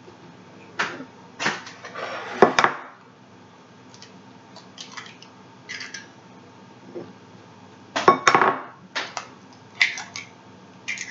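Eggshell and a ceramic bowl being handled while an egg is separated by hand: scattered short clicks and taps. The louder clusters come about two and a half seconds in and again about eight seconds in.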